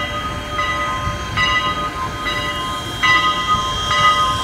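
Strasburg Rail Road No. 89, a 2-6-0 steam locomotive, ringing its bell steadily as it starts its train, a stroke a little under every second, over slow exhaust chuffs from the stack.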